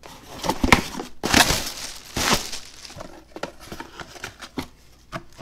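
Small cardboard shipping box being torn open by hand: irregular ripping of tape and cardboard with rustling flaps, the two loudest rips in the first half.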